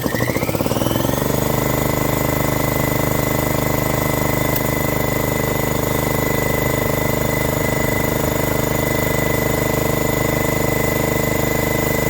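Electric air compressor kicking on: the motor spins up over about a second, then the pump runs steadily and loudly. It has cut in to refill its tank after air was drawn off to inflate a tire.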